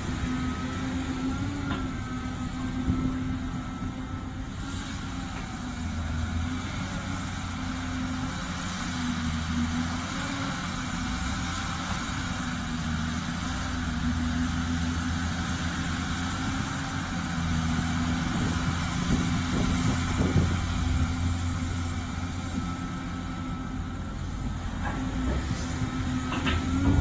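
Diesel engine of a large material-handler excavator running steadily, its level rising and falling as it works, with a few sharp knocks near the end.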